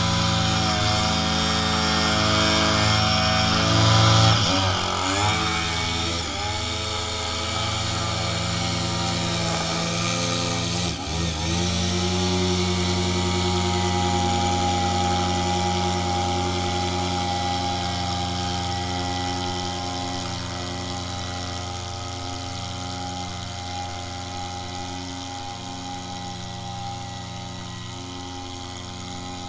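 Husqvarna 535LS two-stroke string trimmer running at high revs while edging along a sidewalk. Its pitch dips briefly a few times in the first half, then holds steady and grows fainter as it moves away.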